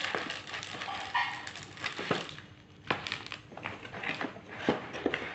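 Laptop box packaging being handled: irregular rustling with scattered light knocks and clicks.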